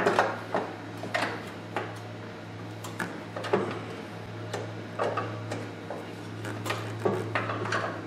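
Sheet-metal engine shroud on a Club Car DS golf cart engine clicking and clattering against the engine and surrounding tin as it is worked into place: a scatter of short, irregular knocks, over a steady low hum.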